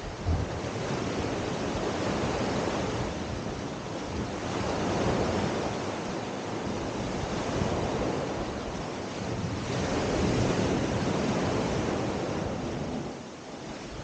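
Small sea waves breaking and washing up a sandy beach, the wash swelling and easing every few seconds and dropping back near the end.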